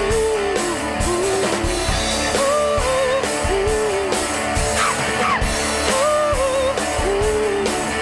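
Live indie rock from a guitar-and-drums duo: a female voice sings a repeated, wavering melodic phrase over guitar and a steady drum beat.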